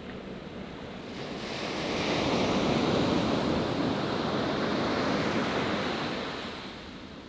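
Ocean surf: a wave breaks and washes up the sand, its rush swelling about a second in and fading away near the end.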